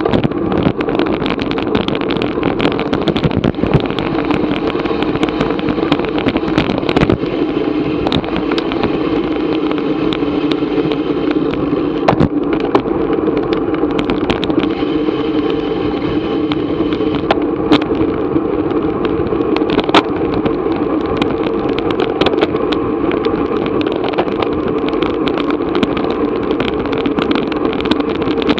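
Steady rush of wind and riding noise picked up by an action camera on a moving racing bicycle, with scattered clicks and rattles.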